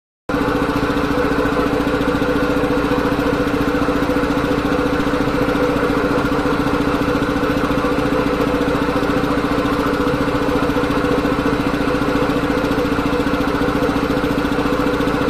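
Two-stage reciprocating air compressor running steadily.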